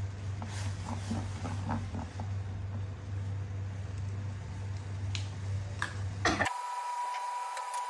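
Pot of water at a rolling boil with instant noodles over a gas burner: bubbling over a steady low hum, with metal tongs clicking against the pot now and then. About six seconds in comes a sharp knock, then the low hum drops out and a steady high beep-like tone holds for about a second and a half.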